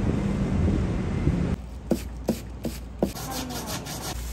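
A steady low rumble of outdoor street noise, then, after a cut about one and a half seconds in, four quick soft taps about a third of a second apart as cooked rice is scooped and pressed into a ball by hand.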